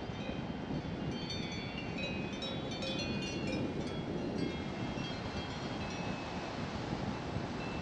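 A car driving along a country road: steady tyre and wind noise, with faint high ringing tones in the first half.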